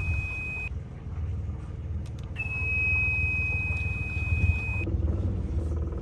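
Warning buzzer on a Yanmar engine panel giving a steady high beep that cuts off as the catamaran's diesel engines start: once, ending about half a second in, then again from about two and a half seconds to about five seconds. A low diesel engine rumble runs underneath and grows stronger near the end as the second engine comes in.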